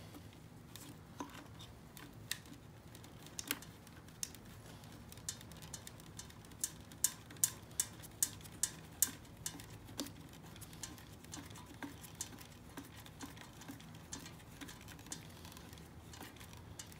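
Faint, scattered small clicks and ticks of hands threading a motorcycle speedometer cable's nut onto its post at the back of the headlight bucket. Near the middle comes a run of louder, evenly spaced clicks, about two or three a second.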